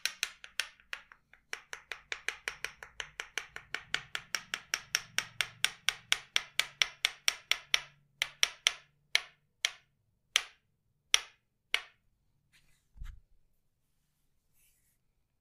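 Tok-Sen massage tapping: a wooden mallet strikes a wooden wedge held against the body in a quick, even rhythm of about six knocks a second, with one short pause. The strikes slow to single spaced knocks about halfway through, then stop.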